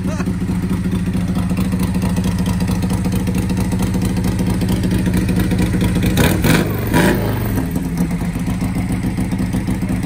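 Harley-Davidson Sportster V-twin idling steadily on its newly fitted Ultima electronic ignition, with the throttle blipped twice about six seconds in, the revs rising and falling back to idle.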